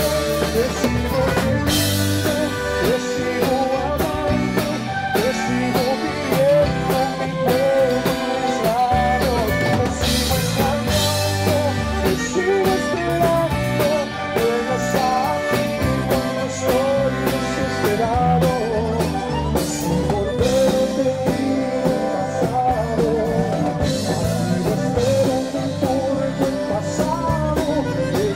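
Tejano band playing: an accordion-led melody over bass guitar and a steady drum-kit beat.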